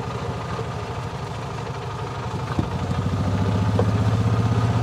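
Golf cart engine running with a steady, rapid pulse as the cart drives along. There is a click about two and a half seconds in, after which the engine grows louder.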